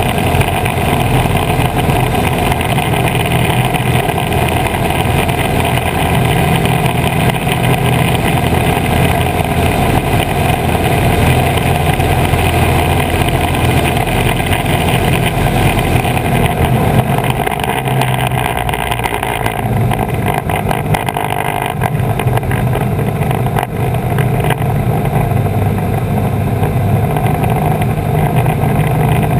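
Piper PA-18 floatplane's piston engine and propeller droning steadily in cruise flight, with wind rushing over the outside-mounted camera. The tone shifts slightly a little past the middle.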